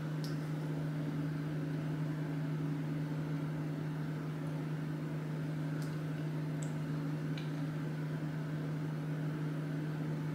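A steady low hum, one even tone with a fainter one above it, like a fan or electrical appliance running, with a few faint small clicks around the middle.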